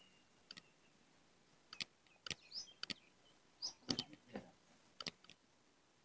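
Near silence with about ten faint, irregular clicks and ticks scattered through the middle seconds.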